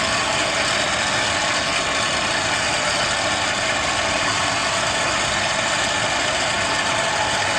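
Electric pipe threading machine running steadily, its motor and gear drive making a constant mechanical whine and hum.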